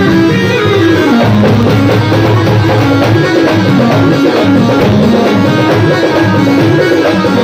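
Loud devotional bhajan music with drums and a melody on instruments.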